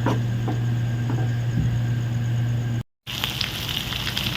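A steady low hum with a few light clicks, then, after a sudden cut near the end, food frying in a pan, sizzling with fine crackles.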